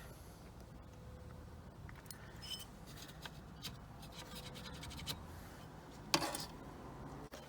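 Scraping and light clicking of a steering hub adapter being handled and fitted onto a steering column, with one louder knock about six seconds in.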